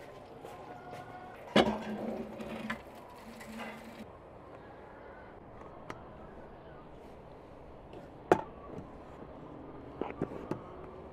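A clear plastic cup scooping flour and knocking against the rim of an enamel basin: a few separate sharp knocks, the loudest about eight seconds in, with a quick cluster near the end. A low steady tone sounds between about two and four seconds in.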